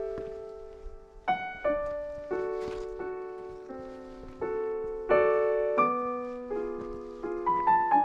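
Background solo piano music: soft notes and chords struck one after another, each fading away.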